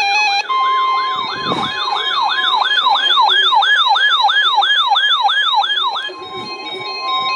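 Electronic siren yelping: a quick, repeating rise and fall in pitch, about two and a half sweeps a second. About six seconds in it gives way to a steady single alert tone.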